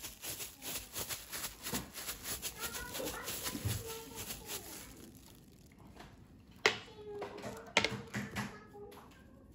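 Thin plastic food-handling glove crinkling as it is peeled off a hand, a rapid run of rustles through the first half. Later come two sharp knocks, the loudest sounds, about a second apart.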